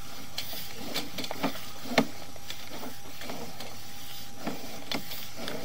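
Sewer inspection camera's push cable being fed down the drain line: irregular clicks and knocks over a steady hiss.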